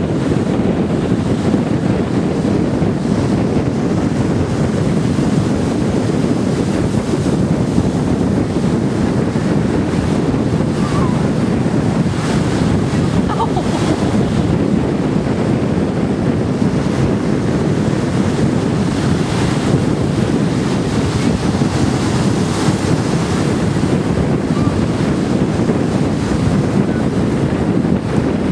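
Ocean surf breaking and washing up the beach, steady throughout, with wind buffeting the microphone.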